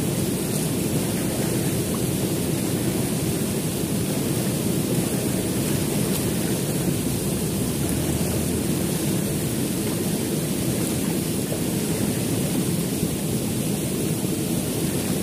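Steady rushing noise of a fast, swirling river current, an even low rush with no break.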